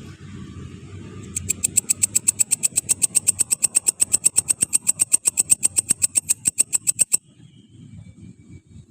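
A grasshopper or katydid stridulating: a rapid, even train of buzzy clicks, about nine a second. It starts about a second and a half in and stops abruptly some six seconds later, over a low steady rumble.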